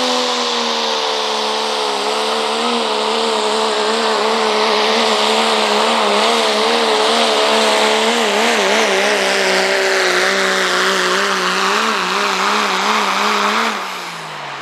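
Turbocharged diesel pickup engine held at full throttle while pulling a weight-transfer sled, its high, steady note wavering in pitch as the truck bounces down the track. About 14 seconds in, the revs fall away sharply as the pull ends.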